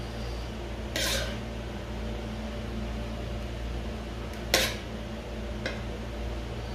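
Steady low mechanical hum, with a short scrape about a second in, then a sharp clink of dishware about four and a half seconds in and a lighter clink soon after.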